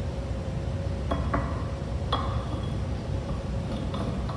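Paschal candle's pole and holder being set down into a wooden stand: a few light clinks and taps about a second and two seconds in, the last one ringing briefly, with fainter taps near the end.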